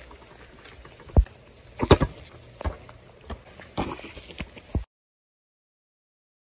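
A basketball knocking and splashing along wet asphalt: a series of separate thumps, the loudest pair about two seconds in. The sound cuts to dead silence about five seconds in.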